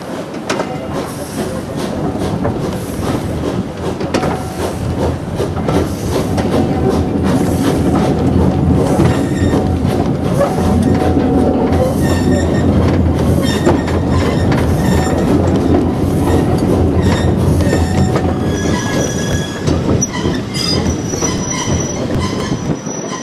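Steam-hauled train running, heard from a carriage window: a steady rumble of wheels on rail with clicking over the joints. High wheel squeal sets in near the end as the train takes the curve into a station.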